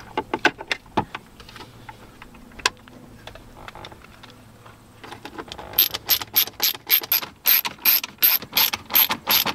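A few scattered plastic clicks as a dash trim panel is pressed into place, then from about six seconds in a ratcheting screwdriver clicking rapidly and evenly, about four clicks a second, as screws are driven into the dash.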